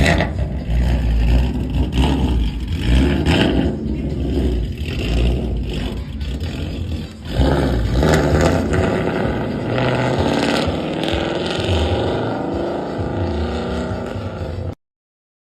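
Ford Mustang GT V8 engine running loudly through its exhaust, the revs rising and falling. It cuts off abruptly near the end.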